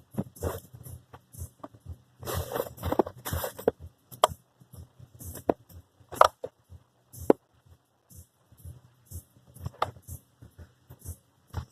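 Hand work on car interior parts: scattered sharp clicks and knocks, with a stretch of rustling and scraping about two seconds in.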